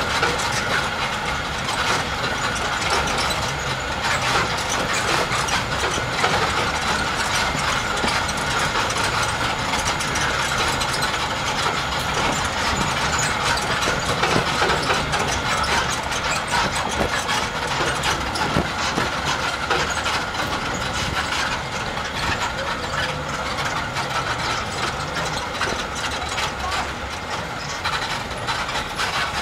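Open trackless resort tram rattling and clattering steadily as it rolls along a paved stone path, with a low engine rumble underneath.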